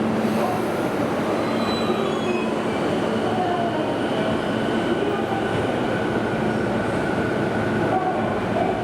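A Toei Shinjuku Line commuter train moving along the platform, its wheels and running gear making a steady loud rumble with faint high-pitched whines over it.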